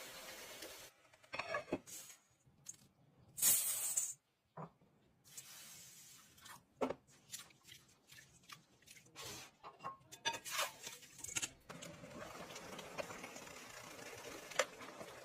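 Kitchen handling noises while cooking: scattered short taps, scrapes and rustles, with a brief loud hiss about three and a half seconds in.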